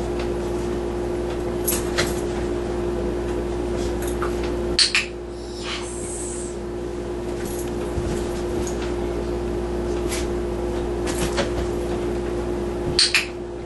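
A few short knocks and clicks over a steady hum, the loudest about five seconds in and a pair near the end: a dog's paws landing on and shifting about on a hard box.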